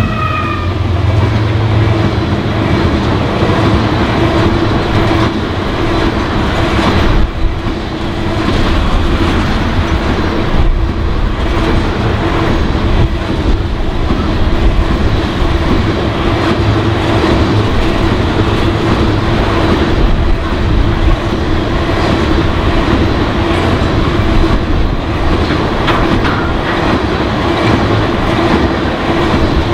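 Freight train passing close by at speed: tank cars rolling past with a loud, steady rumble and the clatter of wheels on the rails.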